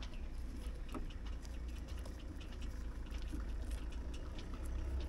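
Faint, irregular small clicks and scratches of a paintbrush dabbing and stirring epoxy resin in a paper cup, over a steady low rumble.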